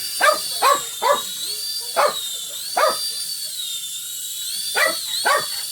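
A dog barking, about seven short sharp barks in two bunches with a pause of about two seconds between them, over the steady high whine of a mini toy helicopter's electric motor and rotor, its pitch wavering slightly.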